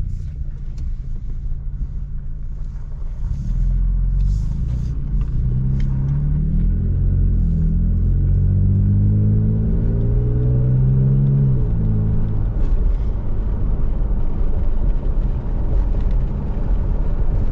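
Toyota Tacoma pickup's engine pulling away and picking up speed, the revs rising, holding, then rising again, over a low steady rumble from the drive.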